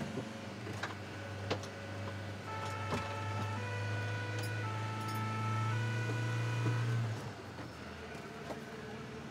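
Fire engine on the move, heard from inside the cab: a steady low engine drone that eases off about seven seconds in. From about two and a half seconds to seven seconds a higher pitched tone rides over it, stepping between notes.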